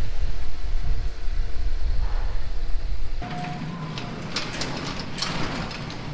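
A low rumble for about the first three seconds, then a sectional overhead garage door coming down, rattling and clicking in its tracks.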